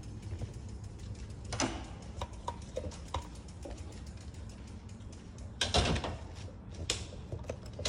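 Scattered knocks, clicks and rattles as a bicycle is wheeled indoors through a doorway, over a low steady hum. The loudest knock comes about six seconds in, with smaller ones a second and a half in and near seven seconds.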